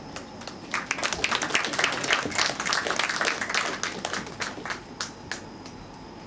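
Audience applauding. The clapping starts about a second in, swells, then thins out and stops about five seconds in.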